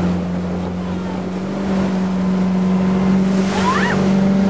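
Speedboat engine running steadily at speed, heard from on board, over the rush of water and wind on the microphone. A person gives a short rising yell about three and a half seconds in.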